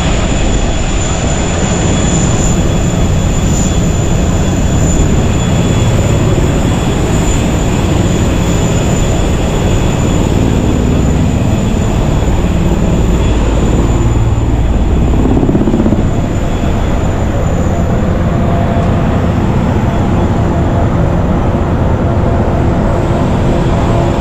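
Airbus A380 cabin noise: a steady, loud rumble of engines and rushing air, with a thin high whine held throughout. The low rumble swells somewhat in the middle and eases a little after that.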